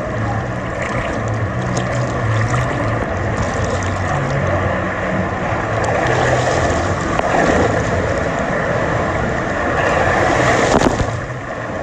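Rushing, churning water of a wave-driven tube river ride, with a steady low hum underneath. It swells twice and eases off shortly before the end.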